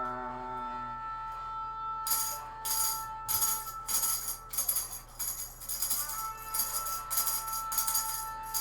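A sung note ends about a second in. From about two seconds in, a tambourine is shaken in short, uneven bursts of jingles, over a steady two-note drone.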